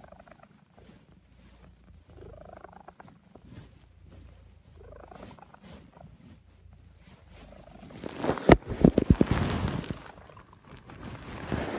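Domestic cat purring softly and rhythmically while dozing, the purr swelling and fading with each breath every couple of seconds. About eight seconds in, a loud rustling crackle covers it for about two seconds, and a shorter rustle comes near the end.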